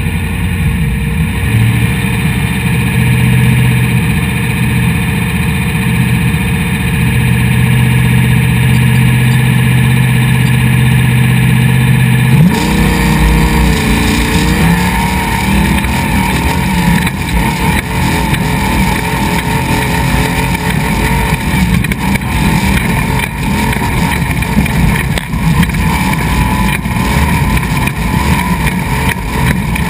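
Off-road race truck engine idling steadily at the start line, then revving hard about twelve seconds in as the truck launches and accelerates away. It then runs flat out over a rough gravel track, with tyre and road noise and frequent jolts.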